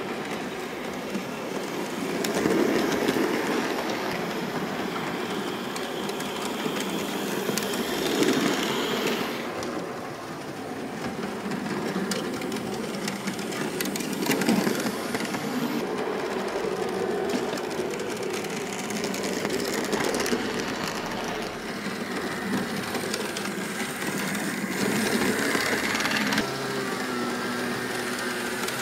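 Model diesel locomotives running on a model railway: the whir of small electric motors and the clicking of metal wheels over the rails, swelling and fading as the trains pass close by, with a small red shunting locomotive going by about halfway through.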